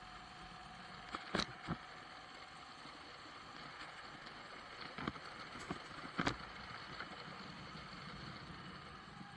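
Steady ride noise from a Moto Guzzi V85 TT motorcycle under way and picking up speed, with a few sharp knocks: a cluster about a second in and several more around five to six seconds in.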